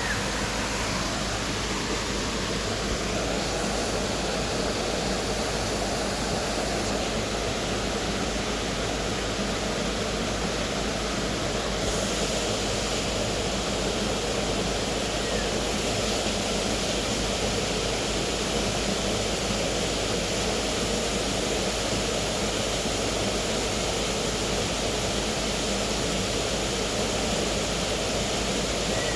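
Tropical waterfall: a steady rush of falling water.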